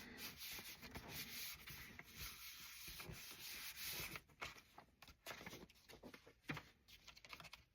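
Faint rubbing of hands over a sheet of paper laid on an inked rubber stamp, pressing a stamped background onto a paper tag. The steady rubbing gives way to light paper rustles and small taps about four seconds in.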